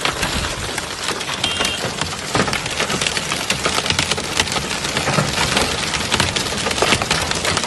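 Hail and heavy rain hitting a car's roof and windshield: a dense stream of sharp ticks over a steady hiss of rain.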